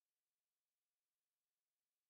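Silence: no sound at all.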